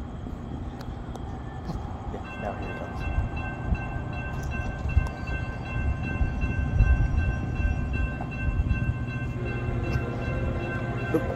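Railroad crossing warning bell starts ringing about two seconds in as the crossing gates lower, over a steady low rumble. Near the end, the horn of the approaching freight locomotive begins to sound.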